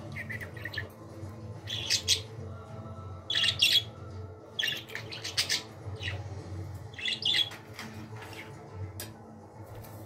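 Pet budgerigar chirping and squawking in short, high-pitched bursts, about six times, the loudest around two and three and a half seconds in.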